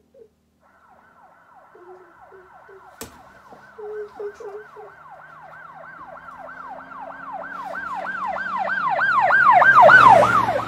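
Siren with a fast repeating falling yelp, about three sweeps a second, growing steadily louder for several seconds and dropping off near the end.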